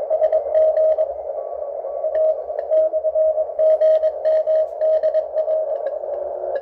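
Shortwave Morse code (CW) signal received on a uSDX Sandwich transceiver: a single mid-pitched tone keyed on and off in dots and dashes over steady band hiss.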